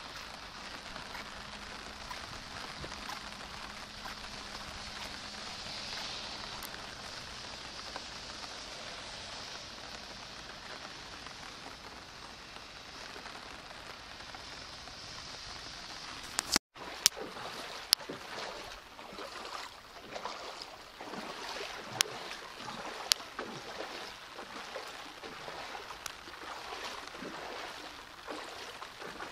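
Steady hiss of heavy rain falling on a road and bridge over a swollen river. About 17 seconds in the sound cuts briefly, then footsteps wade through shallow floodwater, with irregular sharp splashes over the rain.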